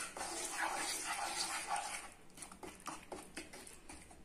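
Wooden spatula stirring and scraping a thick paste of maida flour roasting in ghee in a nonstick pan. The stirring is a steady rustling haze at first, then turns into softer, separate scraping strokes in the second half.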